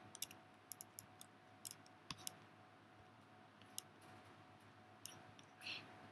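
Faint keystrokes on a computer keyboard: a quick run of about seven taps in the first two and a half seconds, then a few single clicks further on.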